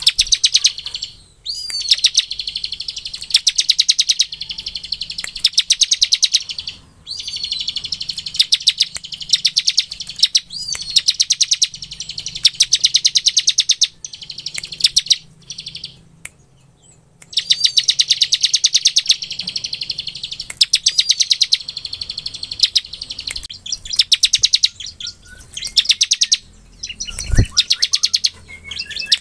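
Ciblek, a prinia, singing its rapid drilling trill ('ngebren'): long runs of fast, high notes in bursts of one to three seconds with short pauses between them, some phrases opening on a rising note.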